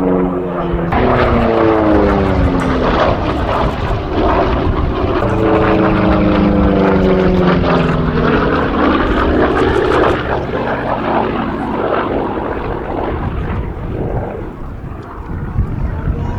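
The piston radial engines of a B-17G Flying Fortress running as it flies past, a loud propeller drone whose pitch falls as it goes by, once near the start and again midway, then easing off near the end.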